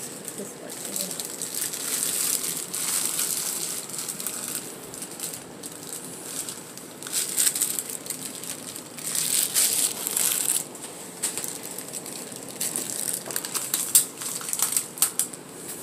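Thin clear plastic bags crinkling and rustling in irregular bursts as they are handled and pulled off small potted orchids, with one sharp tap near the end.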